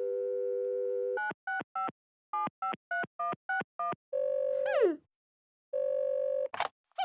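Telephone sound effects: a steady dial tone, then a quick run of touch-tone dialing beeps, then a held tone that slides down in pitch. After a short pause comes another brief steady tone, then a sharp click.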